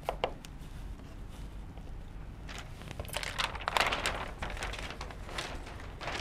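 Rustling and crinkling of a large sheet, a picture chart being pulled off a whiteboard and handled, in a run of noisy bursts that is loudest about four seconds in.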